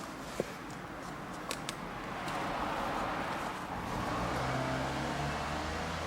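Cabin noise inside a C27 Nissan Serena e-Power minivan on the move, with a few short clicks from the left sliding door, which has started to creak. The road noise grows a little louder after about two seconds, and a low hum comes in later.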